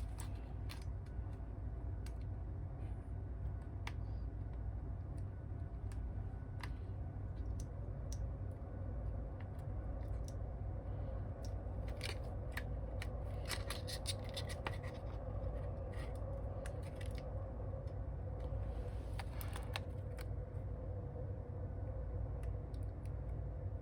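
Small clicks, taps and scrapes of hand tools working on an opened smartphone during a battery and screen replacement. They come scattered, busiest around the middle and again near the end, over a steady low hum.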